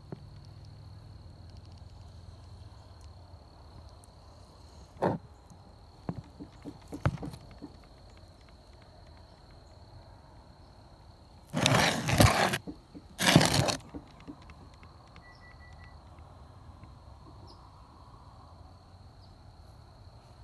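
An insect trilling steadily at one high pitch in the background, with scattered clicks and knocks, then two loud scraping, rustling noises a little over halfway through.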